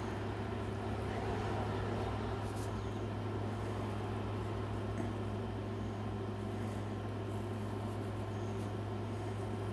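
A steady low electrical or mechanical hum over an even background noise. A few faint brief scratches of a pencil on paper come now and then.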